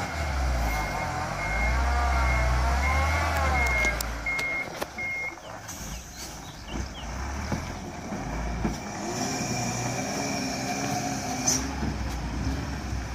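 Hino FM8J truck's diesel engine running under a heavy marble load while its reversing beeper sounds about every half second. The beeping stops about five seconds in and the engine carries on as the truck pulls away, with a brief sharp hiss near the end.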